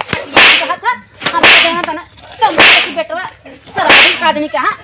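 A grass broom swung in blows, four loud swishing strikes about a second apart.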